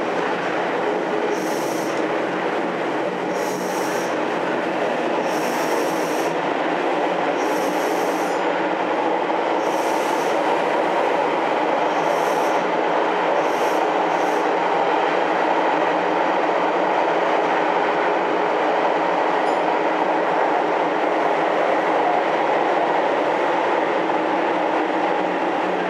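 Nagoya Municipal Subway 7000-series train running through its tunnel, heard from inside the passenger car as a steady rumble of wheels on rail. Brief high-pitched sounds come about every two seconds during the first half, and the running gets slightly louder after about midway.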